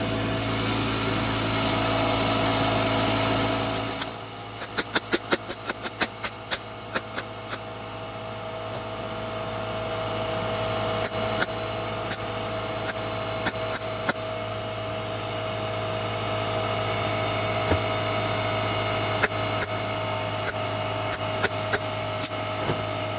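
Pneumatic stapler shooting 3/4-inch staples into a cabinet's back panel: a quick run of about a dozen sharp shots, then single shots every second or so. A steady machine hum runs underneath and drops in level a few seconds in.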